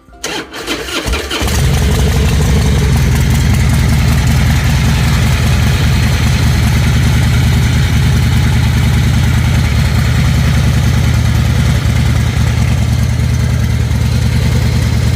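2005 Harley-Davidson Fat Boy's V-twin engine cranking and catching about a second and a half in, then idling steadily. The compensating bolt has just been torqued to spec, and the earlier loud knock is not heard: the owner says he doesn't hear it at all.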